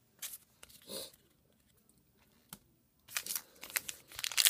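A few light clicks, then from about three seconds in the dense crackling and tearing of a baseball card pack's wrapper being ripped open and crinkled.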